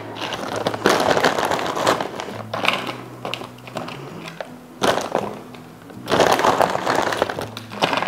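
Frozen broccoli pieces rattling and crunching as they are dropped into plastic tubs, in several separate bursts, over quiet background music.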